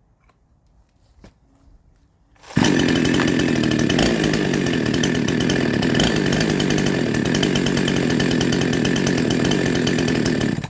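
A Chinese 52cc two-stroke chainsaw, rebuilt with a 62cc crankshaft, running steadily at a constant engine speed. It comes in abruptly about two and a half seconds in, after a near-quiet stretch with a few faint clicks.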